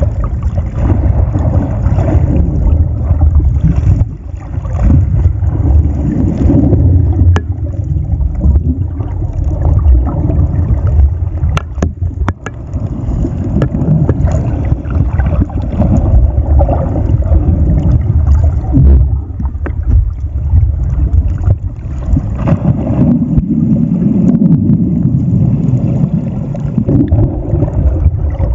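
Muffled underwater rumble of churning water against a submerged camera, rising and falling unevenly, with a few faint clicks.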